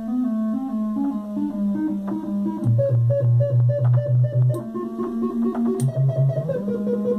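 Modular synthesizer patch of three oscillators, two of them acting as LFOs that modulate the third's frequency. A pitched electronic tone climbs in small stepwise jumps, then drops to a lower tone pulsing about four times a second, leaps back up, dips low again briefly and returns to the higher pitch.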